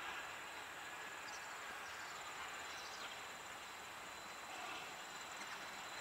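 Faint rural ambience: insects trilling steadily high up over a low, even hiss, with a couple of brief faint high chirps.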